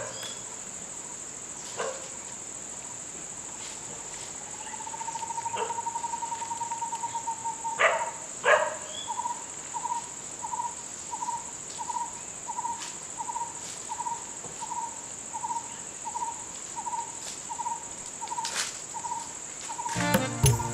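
Garden ambience: a bird repeats a short, hollow, owl-like note about twice a second, after a fast trill, over a steady high insect drone. Two sharp snaps, the loudest sounds, come about eight seconds in.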